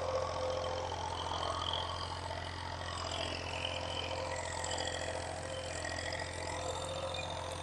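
Tractor engine running steadily, a low continuous drone.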